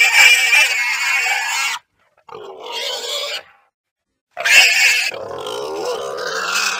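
Wild boar calling in three bouts separated by short silences: one at the start lasting nearly two seconds, a quieter shorter one in the middle, and a loud one from about four and a half seconds in.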